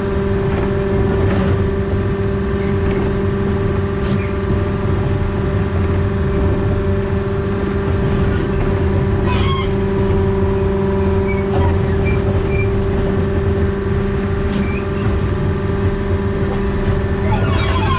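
Diesel engine of a narrow-gauge locomotive converted to diesel-hydraulic drive, running at a steady speed with a constant drone, heard from the fireman's position in the cab.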